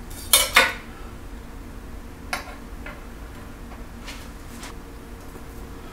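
Knife and fork clicking and tapping against a plastic cutting board while carving grilled chicken: two sharp clicks just after the start, then a few lighter taps.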